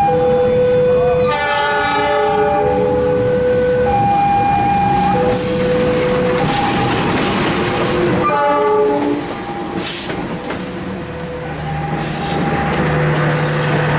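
Train passing with its horn sounding in blasts about 1.5 s in and again about 8.5 s in, over a steady rumble of the train. A steady two-pitch alternating tone sounds between the horn blasts.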